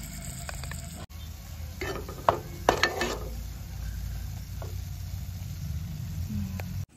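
Steel spoon stirring and scraping masala paste frying in hot oil in a non-stick kadai, over a steady sizzle. A cluster of sharp scrapes and clinks of the spoon against the pan comes about two to three seconds in.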